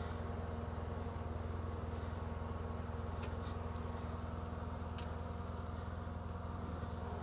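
Polaris RZR 800's twin-cylinder four-stroke engine idling steadily with the machine stopped, with a few light clicks about three and five seconds in.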